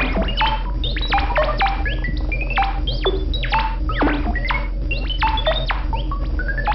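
Buchla and Eurorack modular synthesizer patch playing: quick falling zaps about three a second, scattered with short blips that climb upward in pitch step by step, over a steady low drone.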